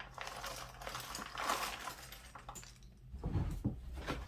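Jigsaw puzzle pieces rattling and clicking in their cardboard box as it is opened and handled, with a few dull knocks near the end.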